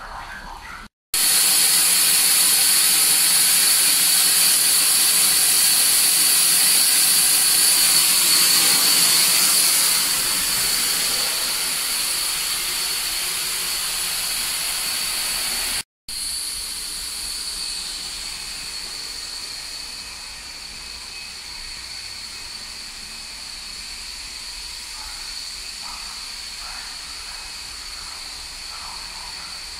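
Steady hissing whine from an EN57 electric train's onboard machinery while it stands with its doors open. The sound breaks off twice for a moment and is quieter after the second break.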